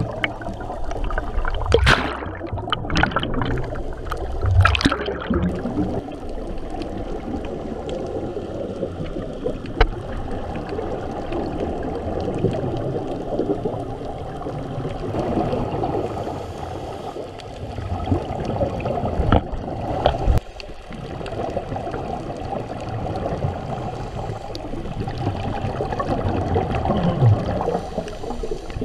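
Muffled underwater gurgling and rumbling picked up by a submerged camera, with snuba divers' exhaled air bubbles rising around it. It is louder in short bubbling bursts about 2 and 4½ seconds in, with a couple of single sharp ticks later.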